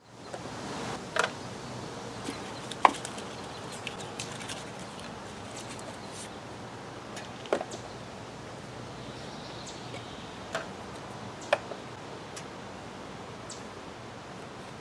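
Steady outdoor background noise with about five sharp knocks and clicks, the loudest about three seconds in: a plastic oil jug and sample bottles being handled and set down on the car's cowl under the open hood.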